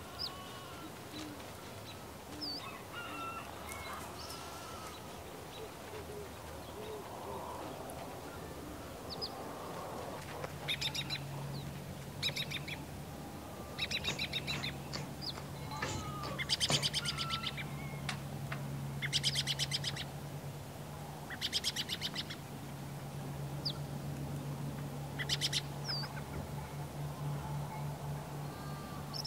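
Birds calling: short high chirps and whistles, then from about ten seconds in a series of harsh, buzzy honking calls every second or two, over a steady low hum.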